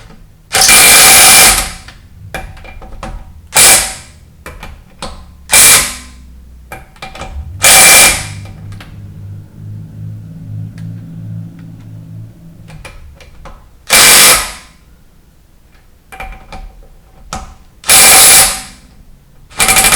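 Impact wrench running in short bursts, about seven in all, driving in the lug bolts on a Volkswagen Beetle wheel.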